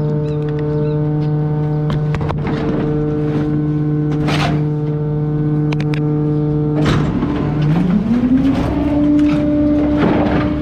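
Garbage truck engine running steadily, its pitch climbing over about a second, about eight seconds in, as it speeds up, then holding higher. Several knocks and scrapes of wood come from the wooden drawer and boards being pushed into the rear hopper.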